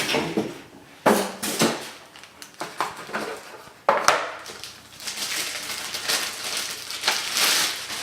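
Packaging being handled and unwrapped: rustling and crinkling, with a sharp snap or knock about a second in and another near four seconds.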